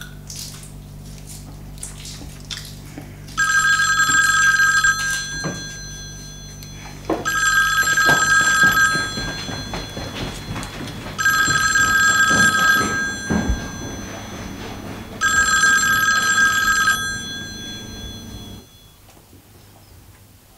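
Telephone ringing four times, each ring a little under two seconds long and starting about four seconds after the last, over a low steady hum with a few light knocks and clatter.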